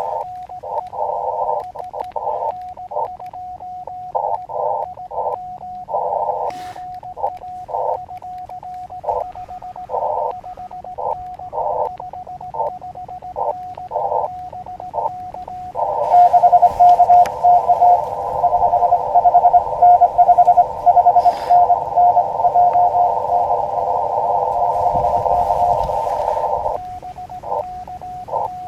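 Morse code (CW) tones from an Elecraft KX2 transceiver: a single medium-pitched tone keyed rapidly in dots and dashes. About halfway through it turns into a dense, nearly unbroken stretch of tone and hiss for about ten seconds, then the separate keying resumes near the end.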